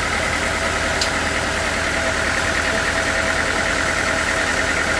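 Sawmill machinery running steadily: a continuous engine drone with a higher whine held level throughout, and a faint click about a second in.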